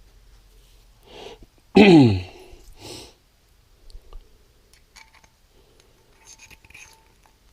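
A person sneezing once, loudly, with a sharp inhale just before and a sniff right after. A few faint small clicks follow.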